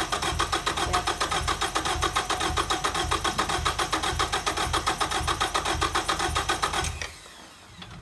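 Starter cranking the 1989 Ford Probe GT's 2.2-litre turbocharged four-cylinder engine, turning over in an even rhythm of about five pulses a second without ever catching: a no-start with spark present. The cranking stops abruptly about seven seconds in.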